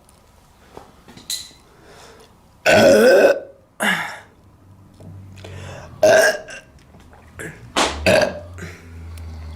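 A woman burping loudly several times: one long burp about three seconds in, then shorter ones.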